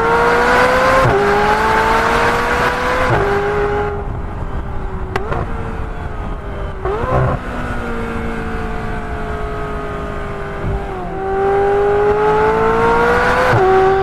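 McLaren 570S Spider's twin-turbo V8 pulling hard in a tunnel, its note climbing and cutting back sharply on quick upshifts about a second and about three seconds in. It eases off through the middle with a short rev blip around seven seconds, then the revs climb again from about eleven seconds to another sharp upshift near the end.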